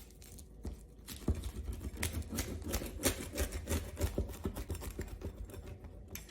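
A blade cutting through a grilled pizza with a crispy bottom crust, making a rapid crackle of small clicks and crunches that starts about a second in and runs until near the end.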